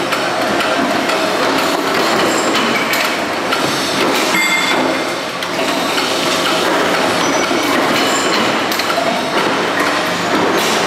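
Metalworking din on a cookware press floor: a steady machinery noise packed with rapid, irregular clanks and knocks of metal, and now and then a brief metallic ring.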